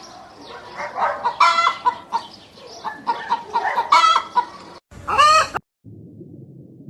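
Chickens clucking, a run of short repeated calls, with a louder call with rising pitch about five seconds in. About six seconds in the calls stop, and a steady low rumble takes over.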